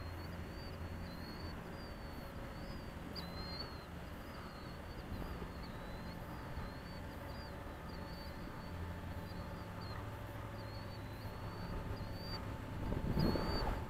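A bird's short, high chirps repeat about twice a second over a low, steady wind rumble, with a louder gust of wind on the microphone near the end.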